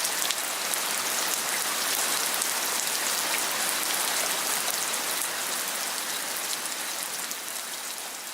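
Heavy rain falling steadily, a dense hiss full of individual drop splats, fading out over the last few seconds.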